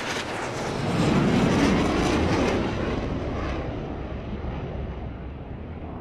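Rushing, rumbling whoosh sound effect that builds over the first two seconds or so, then slowly fades.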